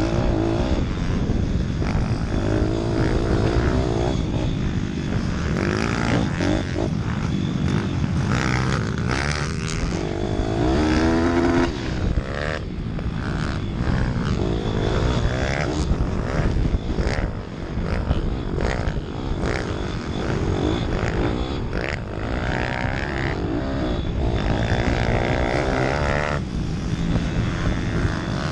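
Motocross minibike engine revving hard and dropping back again and again as it is raced over a dirt track, heard from a helmet-mounted camera, with repeated knocks and rattles over the bumps.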